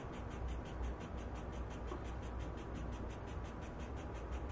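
eSun 3D printing pen's filament-feed motor running steadily as it pushes PLA through the heated nozzle, a low whir with a fast, even ticking over it.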